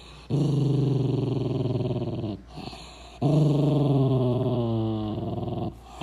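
A long-haired dachshund growls twice in long, low rumbles, the second one sagging in pitch near its end. It is guarding its food.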